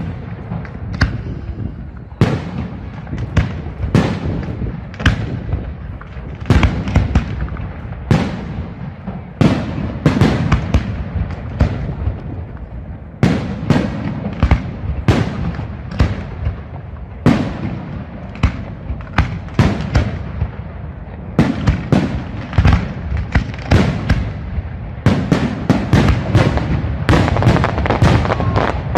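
Fireworks display: aerial shells bursting one after another, a sharp bang every second or so, with several bangs close together near the end.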